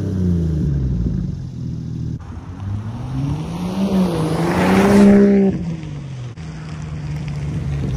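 Exhaust of a Land Rover Defender P400's 3.0-litre turbocharged straight-six, muffler deleted and run through a single 3-inch pipe, as the SUV drives off and accelerates across a lot. The engine note first falls, then climbs to a loud peak about five seconds in and cuts off abruptly, leaving a steady lower drone.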